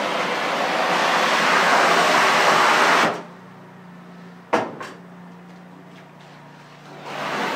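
A 3,500 psi hot-water pressure washer wand spraying tile, a loud steady hiss that stops about three seconds in. A low steady hum and a sharp click or two follow, and the spray starts again near the end.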